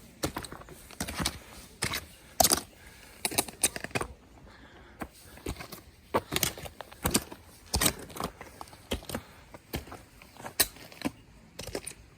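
Hiker's footsteps crunching on a snowy mountain trail, irregular steps about one or two a second, with a brief pause part-way through.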